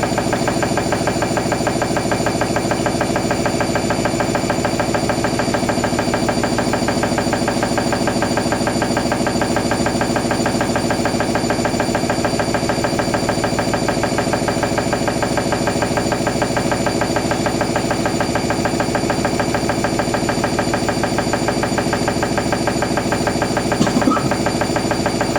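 Hoover NeXtra HNL3146 washing machine on an intermediate spin: the motor and drum run at a steady speed with a constant whine, spinning smoothly without shaking. A brief click comes near the end.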